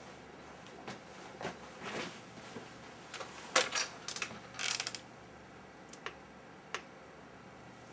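Handling noise at a workbench: scattered light clicks and knocks of small objects being picked up and set down, with a busier run of rustling clicks about three and a half to five seconds in.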